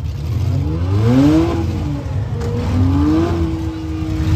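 Demolition derby cars' engines revving hard. The pitch rises twice, about a second in and again near three seconds, and the second rev is held at a steady high pitch over a constant low rumble.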